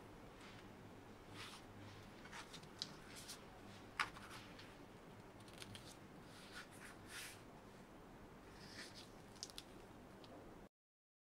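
Faint rustling and soft taps of a plastic-jacketed library book being handled, its cover opened and a sticky note worked inside it.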